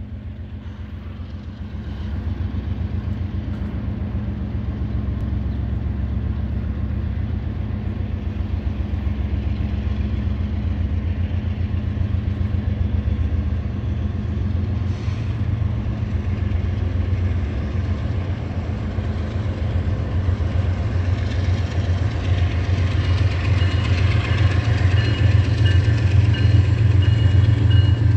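Rebuilt Canadian Pacific diesel locomotive leading a freight train, its engine a steady low rumble that grows louder as it approaches. A thin high whine joins in over the last several seconds.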